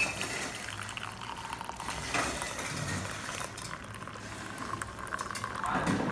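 Black coffee poured from a thermos flask into a ceramic mug: a steady stream of liquid running into the mug as it fills.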